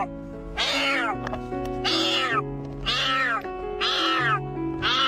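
A kitten meowing over and over, one short high-pitched meow about every second, with background music under it.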